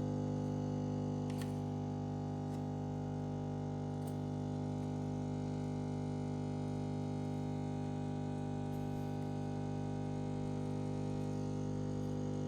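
Miele CVA 6401 built-in coffee machine running steadily while it dispenses espresso, a constant hum from its pump, with a faint click about a second and a half in.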